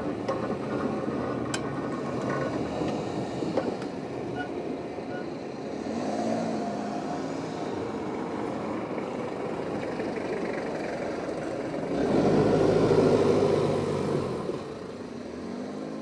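Road traffic crossing a railway level crossing: cars driving over the tracks, with a few sharp clicks in the first seconds. A louder vehicle passes close by from about twelve seconds in.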